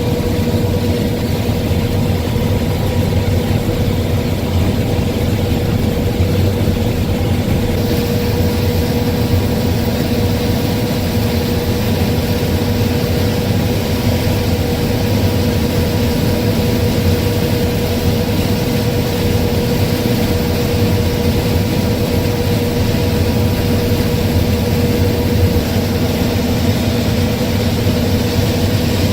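Case IH 6140 combine running steadily while harvesting corn: a heavy engine rumble with a steady whine. A little more hiss comes in about eight seconds in.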